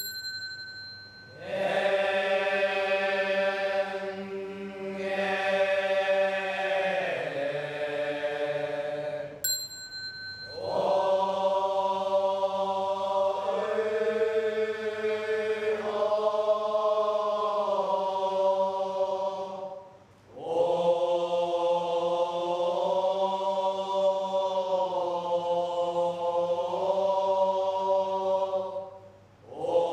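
A group of Buddhist monks chanting together in long, sustained melodic phrases, with brief breaks between them. A metal bell is struck at the start and again about nine seconds in, each ring leading into a phrase of the chant.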